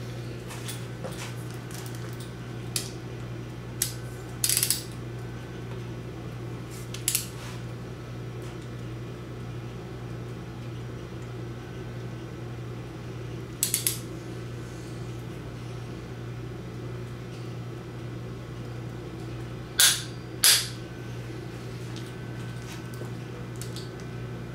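Click-type torque wrench ratcheting and clicking as the oil pump bolts are brought to 35 foot-pounds: short sharp metallic clicks scattered through, a quick triple about two-thirds of the way in and the loudest pair near the end, over a steady low hum.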